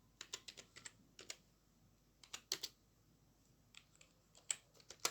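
Computer keyboard typing: short bursts of quick keystrokes with pauses between them.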